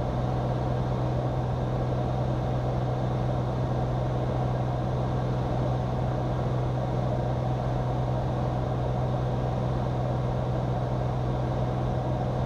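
Steady in-flight cabin drone of a Cirrus SR22's six-cylinder engine and propeller, a constant low hum over a rushing noise that does not change.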